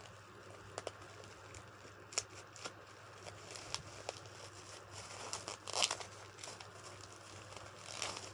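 Parcel packaging being handled and torn open by hand: scattered crinkles and small rips, with a longer rustle a little before six seconds in and another near the end.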